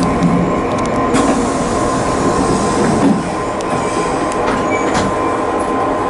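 Cab interior of a 185-series electric train rolling slowly along a station platform: steady rail and running-gear noise with a thin constant whine and a few sharp clicks near the start.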